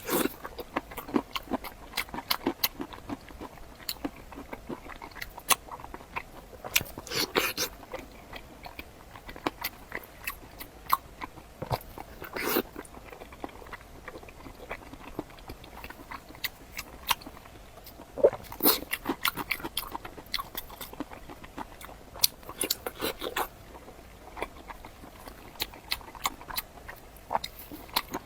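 Close-miked eating: chewing with many sharp wet mouth clicks, and louder bursts of biting every few seconds.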